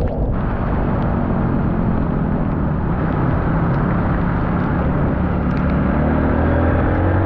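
Honda 150cc dirt bike's single-cylinder four-stroke engine running while riding, under a rush of wind noise; the engine pitch rises near the end as it revs up.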